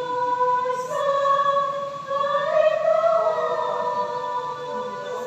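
Choir singing long held notes, moving to new notes about one and two seconds in.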